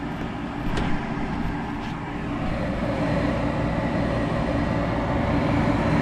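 Draft inducer motor of a Carrier 48GS gas package unit running with a steady hum, a little louder about halfway through. The inducer runs but the burners stay unlit, and the control board reads a pressure switch fault.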